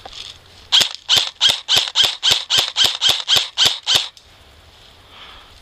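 Airsoft rifle firing a quick string of about twelve single shots, close to four a second, in an even rhythm, starting about a second in and stopping about a second before the end.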